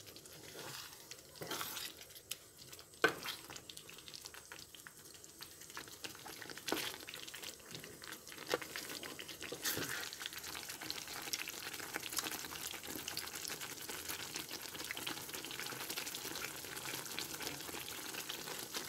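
Thick fruit pickle bubbling and sizzling in a pan on a gas stove, with a wooden spatula stirring and knocking against the pan now and then. The crackle grows denser about halfway through.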